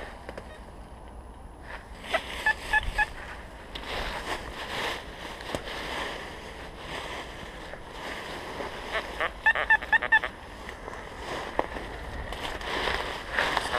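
XP Deus metal detector giving short beeping target signals as its coil sweeps over dry leaf litter: about four beeps a couple of seconds in, and a quicker run of beeps around ten seconds in. Dry leaves and twigs rustle underfoot and against the coil.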